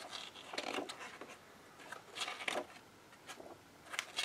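Pages of a softcover rulebook being turned by hand: a few short, faint paper rustles and brushes.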